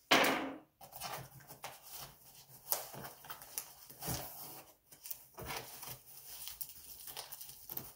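Large cardboard shipping box being pulled open by hand: irregular scraping, tearing and rustling of cardboard and packing tape, with a brief loud scrape in the first second.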